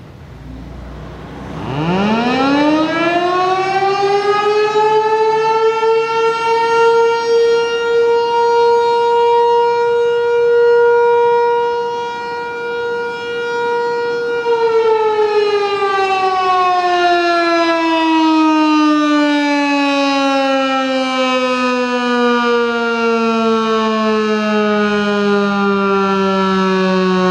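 ASC T-128 outdoor warning siren sounding its noon blast. It winds up from about two seconds in to a steady tone and holds it for several seconds, then winds down slowly, the pitch falling steadily.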